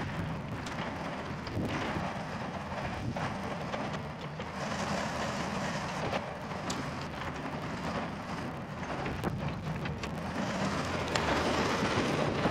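Yanmar VIO50 mini excavator's diesel engine running under work as the machine slews and tracks, with occasional sharp clanks from the tracks and undercarriage. It gets louder near the end as the machine comes closer.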